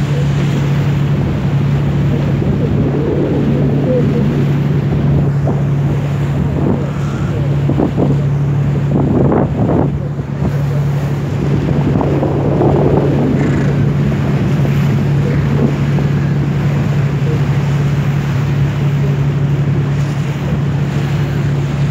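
Cruise boat's engine running with a steady low drone, under wind buffeting the microphone and water washing past the hull, with a few gusts about halfway through.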